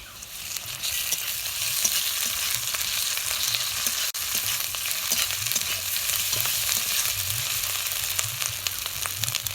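Ginger paste sizzling in hot oil with fried onion and garlic paste in a kadai. A steady sizzle with fine crackles of spattering oil swells over the first second, as the paste goes into the hot oil.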